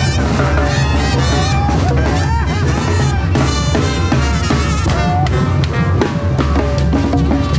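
Mexican street band playing a tune on the march: snare drum, bass drum with cymbal and conga keep a steady beat under a tuba and horns.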